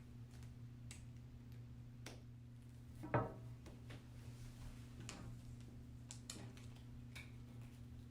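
Plastic pen parts being handled and pressed together: scattered light clicks and taps, with one louder knock about three seconds in, over a faint steady low hum.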